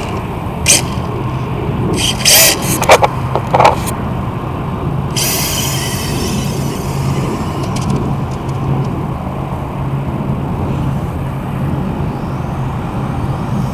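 Electric RC touring car with a brushless motor driving past the camera. There are a few short, very loud passes in the first four seconds, then a longer high-pitched whine and tyre hiss for about two seconds, over a steady low hum.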